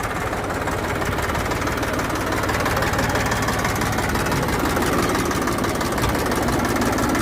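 Massey Ferguson 241 tractor's three-cylinder diesel engine running steadily and growing slightly louder over the first few seconds. The engine is freshly rebuilt and not yet run in.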